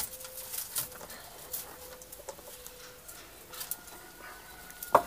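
Pruning shears cutting grapevine canes, with a sharp snip right at the start and another near the end. Between them, light clicks and rustling as the cut canes are pulled from the trellis.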